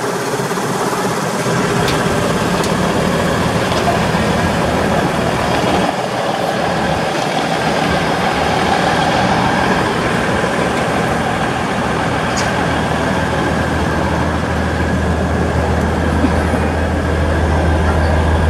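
Diesel railbus engine running steadily at standstill, a constant mechanical drone; a deeper low hum grows stronger about two-thirds of the way through.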